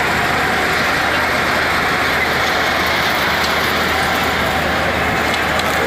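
Heavy vehicle's engine running steadily at a constant speed, a dull hum under an even wash of noise.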